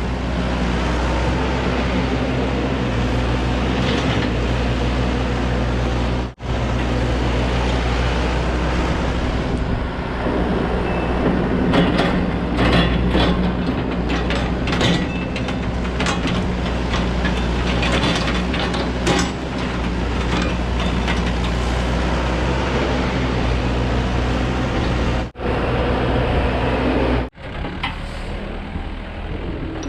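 Excavator's diesel engine running steadily under load, with scattered clanks and knocks from the machine working through the tree pile. The sound cuts out suddenly three times.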